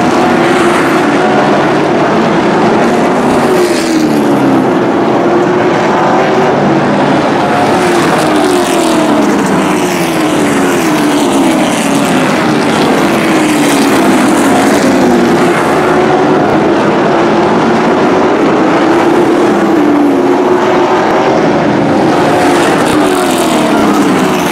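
A pack of short-track race trucks running hard around an oval, their engines loud and continuous, with engine notes falling in pitch again and again as trucks go by.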